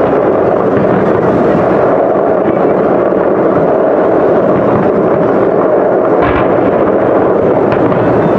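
Dense fireworks barrage: many shell bursts running together into a continuous loud wash of booms, with one sharper bang about six seconds in.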